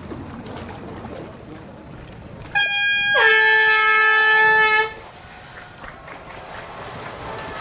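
Race starting horn sounding once to start swimmers off a floating pontoon in an open-water swim. It comes in about two and a half seconds in, starts on a higher note, drops to a lower held tone after about half a second, and cuts off after a little over two seconds.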